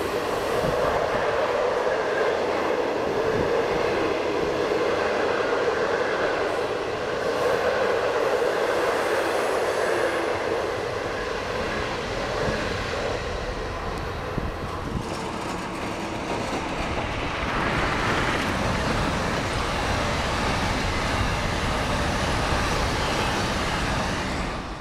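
Conventional locomotive-hauled passenger coaches passing close by at speed: a continuous rumble and rattle of wheels on the rails, changing character about halfway through.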